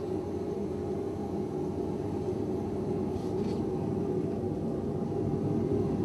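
Dark ambient electronic drone from a live set: a steady low rumbling hum with a few held tones, and a faint brief hiss about three seconds in.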